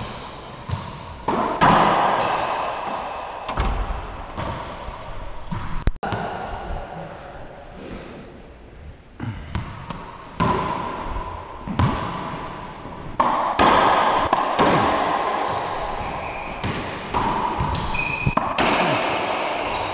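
Racquetball being played: repeated sharp cracks of the hollow rubber ball off racquet strings, walls and the wooden floor at irregular spacing, each ringing in the enclosed court.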